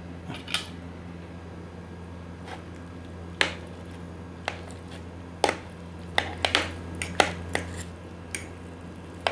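A metal fork clinking and scraping against a plate as noodles are mixed: about a dozen short, sharp clinks, more frequent in the second half, over a steady low hum.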